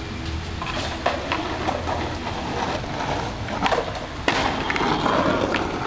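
Skateboard wheels rolling on concrete, with a few board clacks and one loud sharp smack a little past four seconds in as the board comes down off an ollie from a ledge.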